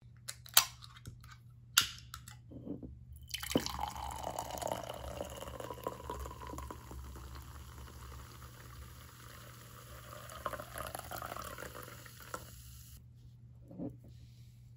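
Two sharp clicks, then a fizzy grape drink is poured from a can into a glass: a steady frothy pour lasting about nine seconds. A light tap near the end.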